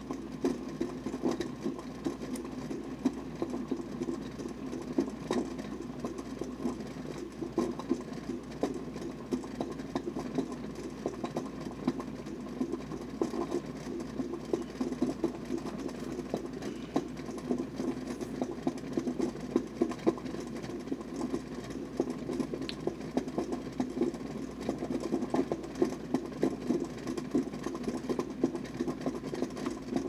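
Water at a good rolling boil in a Topwit glass electric kettle: a low, steady bubbling rumble crowded with quick irregular pops.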